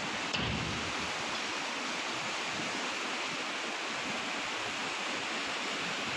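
Steady rushing of a fast, flood-swollen river, an even wash of water noise, with one short knock near the start.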